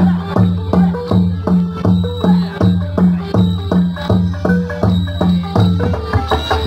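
Cambodian traditional dance music, a drum keeping a steady beat of about two strokes a second, with the low drum tones and sharper strokes repeating evenly.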